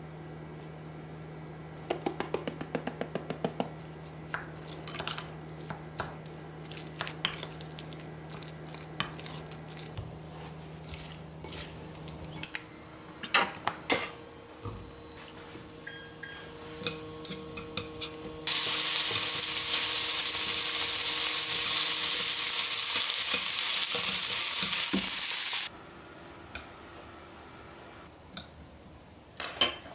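A spoon stirring and clinking against a glass mixing bowl as minced pork is mixed with seasoning, then a kitchen tap running hard for about seven seconds as cucumbers are rinsed, switched on and off abruptly; a few light clicks of chopsticks on a ceramic plate near the end.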